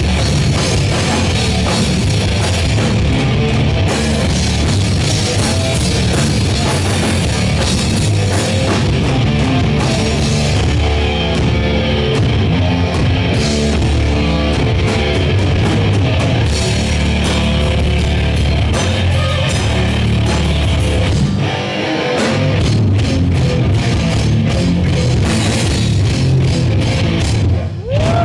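Live rock band playing loud, heavy rock with guitar and drum kit. The low end drops out briefly about two-thirds of the way through, and the music breaks off for a moment near the end with a rising glide.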